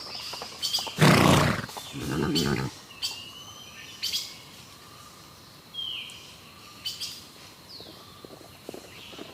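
A horse snorts about a second in: a loud rush of breath through the nostrils followed by a shorter buzzing blow. Birds chirp in the background.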